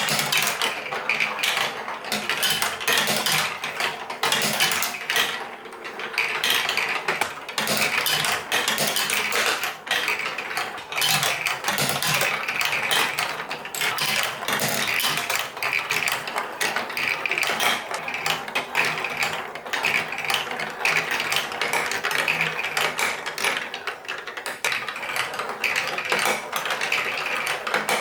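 Many marbles rolling and clattering along plastic building-block tracks: a dense, continuous rattle of small clicks.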